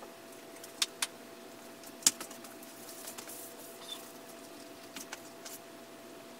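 A few sharp clicks and snips of hand tools, the loudest about two seconds in, as wire cutters work through a hydraulic brake hose. A steady faint hum runs underneath.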